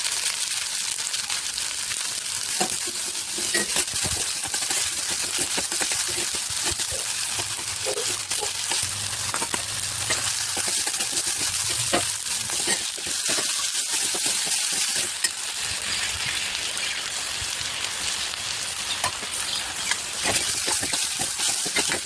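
Food frying in hot oil, a steady crackling sizzle with scattered small clicks and knocks.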